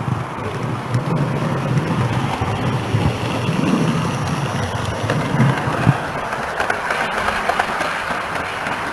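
Model railway train running along the track: a steady motor-and-wheel rumble with occasional clicks, typical of wheels passing over rail joints.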